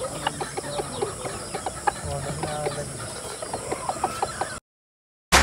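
Chickens clucking in short, repeated calls over steady outdoor background noise. The sound cuts off suddenly near the end, and loud electronic music starts right at the close.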